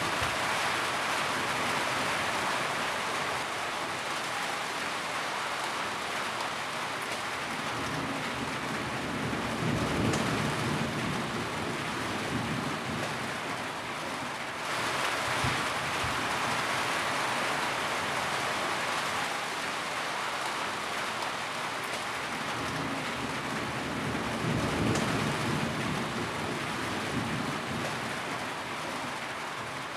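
Steady heavy rain falling, a dense even hiss. Low rumbles swell about a third of the way in and again near the end, and the rain's texture changes abruptly about halfway through.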